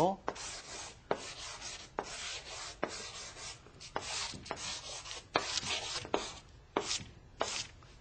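Quick strokes of a thick drawing stick scratching across paper on an easel board as tree branches are drawn: about twenty short, rasping strokes, two or three a second, each beginning with a light tap as the tip hits the paper.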